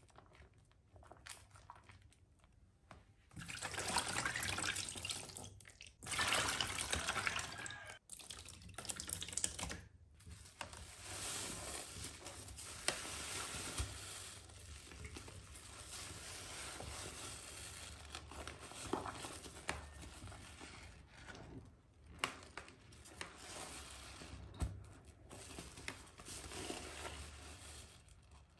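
Hands squeezing and kneading soaked, mushy soap and a soapy sponge in a tub of soapy water: wet squelching, squishing and sloshing. Faint at first, with loud bursts of squelching a few seconds in, then steady wet squishing with small splashes.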